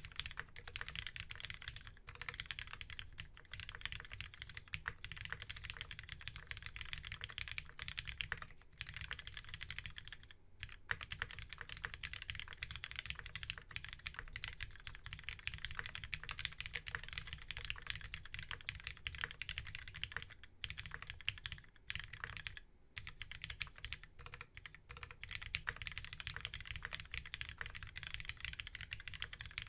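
Fast, continuous typing on a Keycult No.2 custom mechanical keyboard with lubed retooled Cherry MX Black linear switches, a brass plate, screw-in stabilizers and GMK keycaps. Dense keystrokes with a few short pauses.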